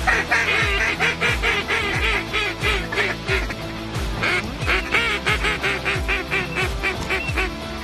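Flock of geese calling in a rapid run of high, yelping honks, over background music with a steady bass beat.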